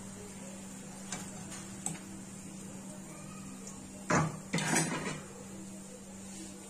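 A plate and wire skimmer being handled in the kitchen: a couple of light clicks, then two louder clattering knocks about four seconds in, over a steady low hum.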